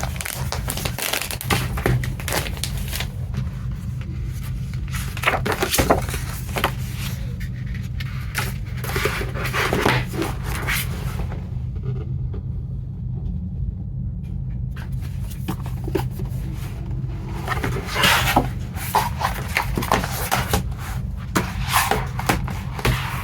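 Hands handling a Blu-ray box set and its packaging: irregular clicks, taps and scrapes of plastic cases and cardboard, with a quieter stretch about halfway through. A steady low hum runs underneath.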